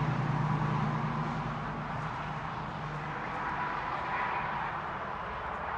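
Distant engine hum, fading after about three seconds, over a steady outdoor background.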